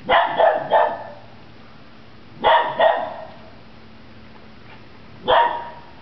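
Siberian husky barking while hunting birds in a bush: three quick barks, then two more about two and a half seconds in, and a single bark near the end.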